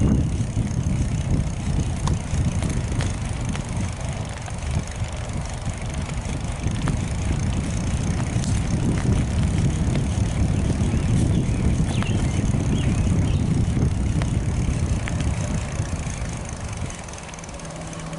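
Wind rumbling on the microphone while riding a bicycle along an asphalt road, with tyre noise and a few light clicks from the bike. The rumble eases off about a second before the end.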